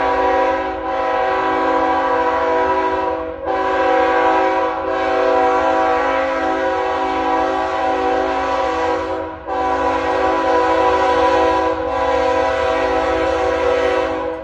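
Train horn blowing long, held blasts, a chord of several tones sounding together, broken by a couple of short gaps, over a low rumble.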